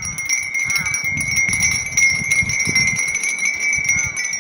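Many small wind chimes (furin) ringing together, a dense steady tinkle of light strikes.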